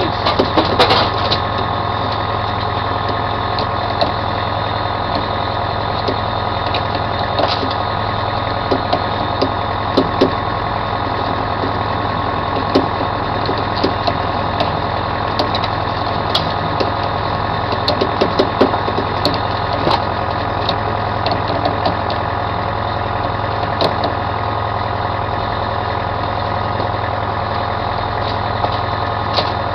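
A fishing boat's engine running steadily, with scattered short knocks and clicks from gear being handled on deck.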